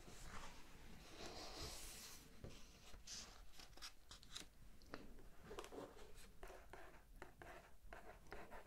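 A page of a large hardcover book being turned, with a soft hiss of paper in the first two seconds. Faint scattered taps and rustles of hands on the paper follow.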